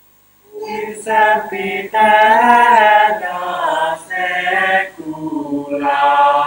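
Unaccompanied singing voices in slow, held phrases, starting about half a second in after a brief silence.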